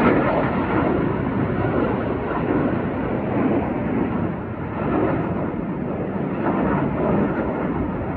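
Jet engines of a formation of aerobatic display jets passing overhead: a steady, loud rush of jet noise that swells and eases slightly.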